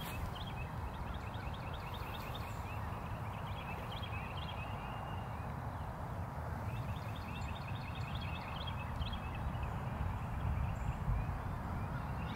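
Runs of rapid, evenly spaced high-pitched clicks from a small calling animal, each run lasting several seconds, with a short gap about halfway through, over a steady low rumble.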